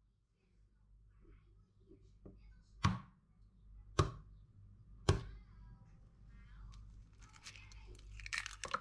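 Three sharp knocks about a second apart, the last with a short ringing tail, followed by lighter clicks and rustling: kitchen utensils being handled while preparing food.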